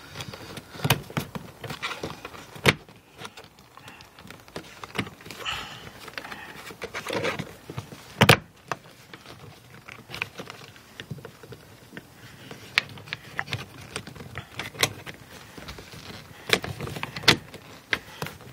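Plastic inner mirror cover trim being handled and pressed back into place on a car door, giving scattered sharp clicks and knocks, the loudest about eight seconds in.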